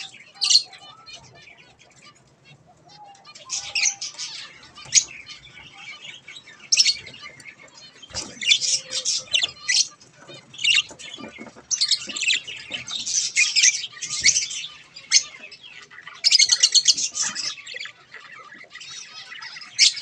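Budgerigars chirping and chattering in repeated high, scratchy bursts, some lasting a second or two and made of rapid pulses, with short gaps between them.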